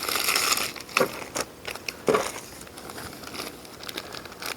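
Plastic parts bags crinkling and rustling while being searched through, with a few sharp clicks of small parts or the bags being handled.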